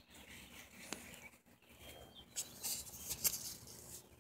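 Faint rustling with a few sharp clicks as a small dog moves about and sniffs right by the microphone.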